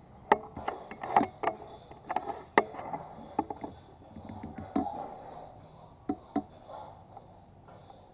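A run of sharp clicks and knocks from handling an NHX Reborn PCP air rifle between shots, as it is cocked and reloaded, the loudest in the first three seconds and the last pair about six seconds in. A faint steady high hiss sits underneath.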